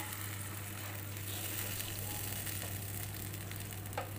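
Steady low hiss of a curry pan on a gas stove as freshly added water heats over the fried masala, with a constant faint hum under it. A brief knock comes near the end.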